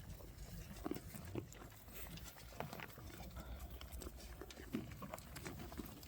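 Dorper sheep milling about: faint, irregular knocks and shuffling from hooves and bodies moving.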